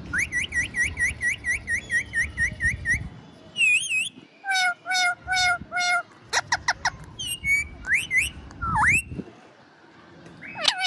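Parrot calling with whistled notes. It opens with a fast run of repeated chirps, about four a second for three seconds, then gives varied short whistles and rising glides.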